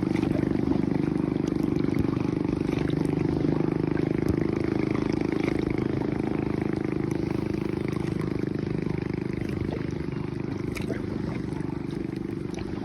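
A boat's engine running steadily at an even pitch, slowly fading toward the end.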